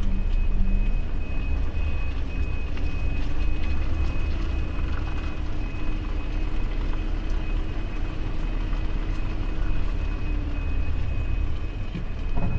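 Volvo truck engine running, heard from inside the cab: a steady low rumble with a faint high whine.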